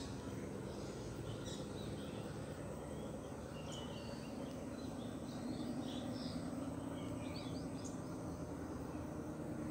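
Birds chirping in short scattered calls over a steady low hum that swells slightly about halfway through.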